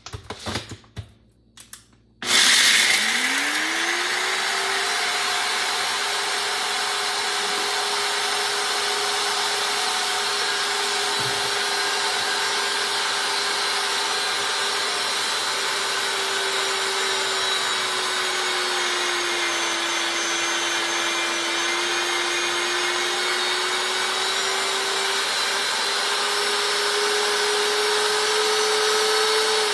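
NutriBullet RX blender grinding dry dog kibble into powder. After a few clicks as the cup is seated, the motor starts suddenly about two seconds in and runs with a steady whine, its pitch sagging a little partway through and rising again near the end.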